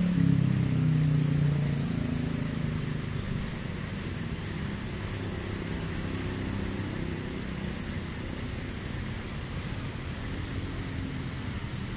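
Ornamental fountain water splashing steadily: jets falling into a basin and thin streams spilling over a ledge into a pool. A low hum is loudest at the start and fades away over the first several seconds.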